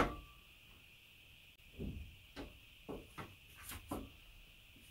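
Handling noise from assembling a steel machine stand: a sharp metallic clink that rings briefly at the start, then a few scattered lighter knocks and rattles of bolts and hardware against the frame.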